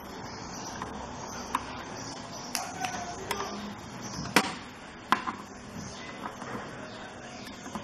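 Screwdriver working the screws of a TV main board: a handful of sharp metallic clicks and taps at irregular intervals, the loudest about four and a half seconds in, over a steady hiss.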